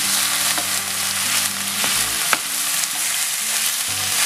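Minced beef sizzling as it fries with onion and garlic in olive oil in a frying pan, stirred with a wooden spatula, with a sharp click about two seconds in.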